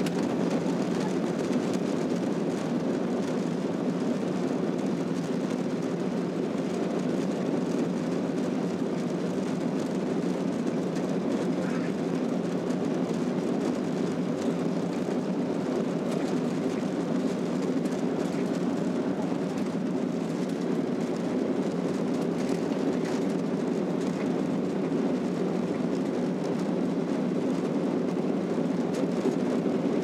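Steady low rumble of engines and airflow heard inside the cabin of a Boeing 737-800 taxiing on a rain-soaked airport surface, holding an even level without spooling up.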